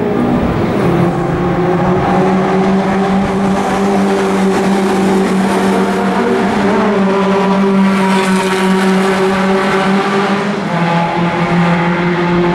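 Lotus Seven and Caterham race cars' engines running hard as the cars go by on the track, a steady, loud engine note that briefly dips about ten seconds in and then picks up again.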